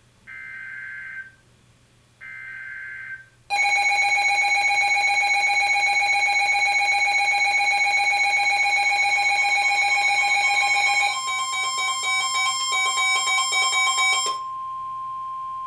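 NOAA Weather Radio alert: two short one-second data bursts of the SAME alert header, then a weather alert radio's loud, buzzy built-in alarm that starts about three seconds in and sounds for about eleven seconds. Near the end the broadcast's steady single-pitch attention tone comes in beneath the alarm and goes on alone after the alarm stops.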